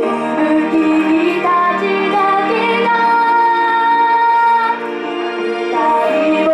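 A young girl singing a slow Japanese pop ballad into a handheld microphone, holding long notes.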